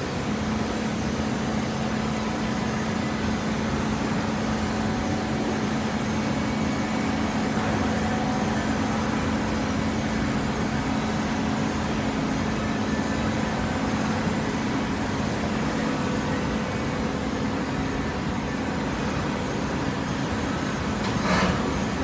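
Automatic hydraulic waste-paper baler running, its motor and hydraulic pump giving a steady hum over general machine noise. A brief sharp noise comes near the end.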